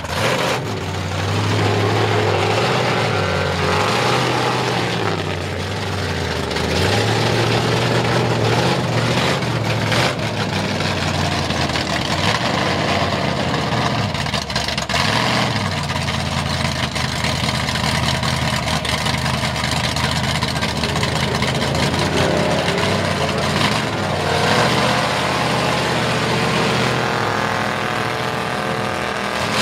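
Lifted GMC pickup's V8 running through open headers, revving up and down several times as the truck crawls through mud on its 44-inch tires.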